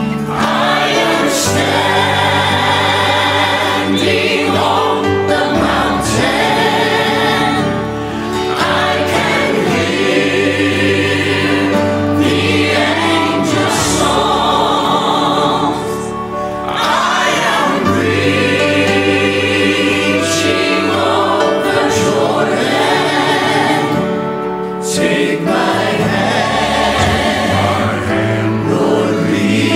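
A choir singing a gospel song over a steady bass accompaniment, in long phrases with short breaks between them.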